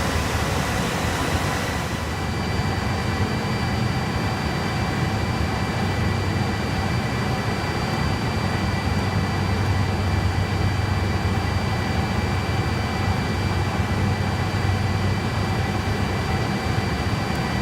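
Steady rush of data-centre equipment fans: network switch and server cooling fans running, with several thin high whining tones over the airflow noise. The high whine shifts slightly about two seconds in.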